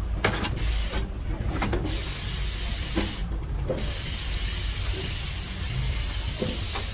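Steady high hissing, like air or spray jetting, that stops briefly twice, over a low rumble with a few faint knocks.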